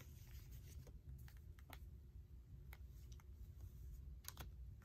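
Faint, scattered soft clicks and rustles of paper oracle cards being handled and slid off a deck, over a steady low hum.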